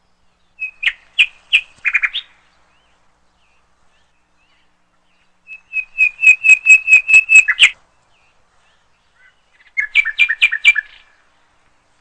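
Red-billed hornbill calling in three bouts of quickly repeated notes, about five a second; the middle bout is the longest.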